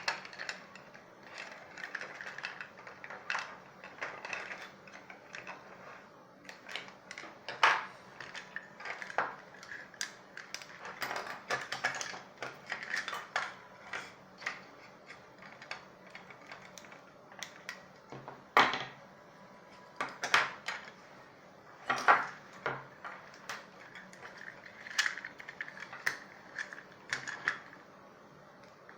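Hands working on small plastic headphone parts and thin wires, making irregular clicks, taps and rustling scrapes, with a few sharper, louder clicks.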